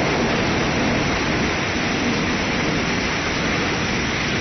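Rain falling steadily in a thunderstorm: an even, unbroken hiss.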